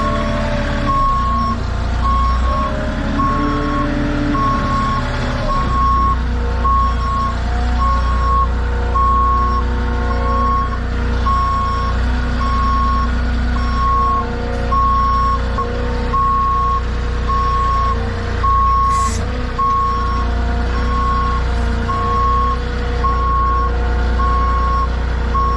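A vehicle's reversing alarm beeping steadily, one tone about once a second, over a running engine, as the machine backs up while pallets are offloaded.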